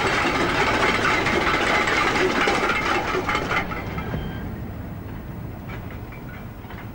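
Freight wagons rolling through a hump marshalling yard: a dense clatter of steel wheels on rails, made up of many quick clicks, which fades away after about three and a half seconds.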